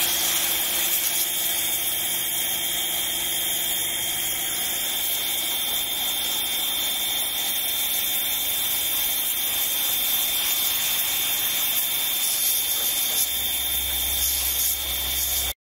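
A pressure washer's jet blasts grime off a stone fountain basin: a loud, steady hiss of spray with the machine's steady running hum underneath. It cuts off suddenly just before the end.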